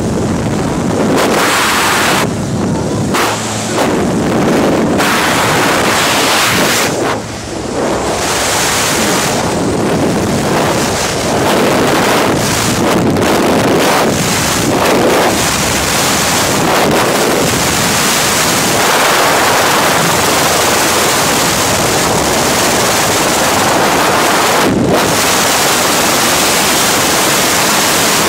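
Freefall wind rushing over the camera's microphone during a skydive, a loud, even roar of air. It is uneven with brief dips in the first eight seconds, then holds steady.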